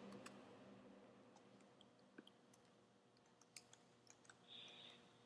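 Near silence: faint room tone with a few scattered faint ticks.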